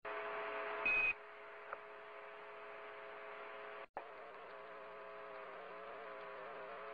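Radio-transmission hiss with a steady electronic buzz, and a short high beep about a second in, in the manner of an Apollo mission's Quindar tone. The signal drops out for an instant near four seconds, then the buzz carries on.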